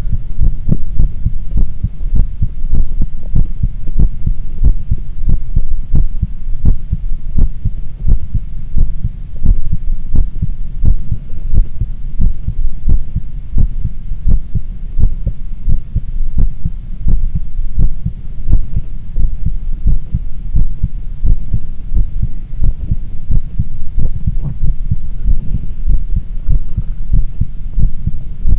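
Human heartbeat heard close up: a steady, regular run of low thumping heart sounds over a low hum.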